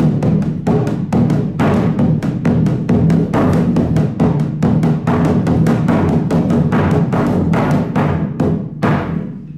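Hira-daiko (flat, hanging Japanese taiko) struck lightly in a rapid continuous roll with two wooden sticks: quick taps over a steady low boom, the strokes spacing out near the end. Its leather head has stretched with years of use and gone slack, so the drum gives a flabby 'byan byan' sound with no taut ring.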